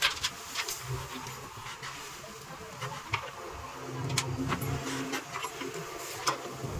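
JCB 3DX backhoe loader's diesel engine running, its hum growing stronger from about four seconds in as the backhoe arm moves, with scattered sharp clicks and knocks throughout.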